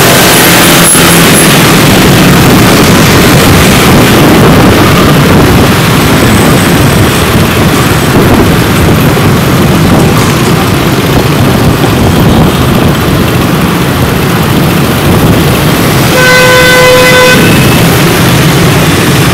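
Honda Win motorcycle riding in busy street traffic among other motorbikes, with steady loud engine and road noise. A horn sounds once for about a second near the end.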